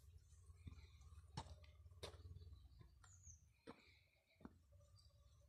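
Near silence: faint outdoor ambience with a low rumble, a few soft clicks and one short, high falling chirp about three seconds in.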